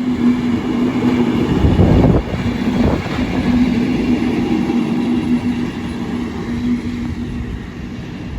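Class 73/9 electro-diesel locomotive 73964 running light past the platform: a loud, continuous rumble with a steady hum, loudest about two seconds in and easing a little near the end.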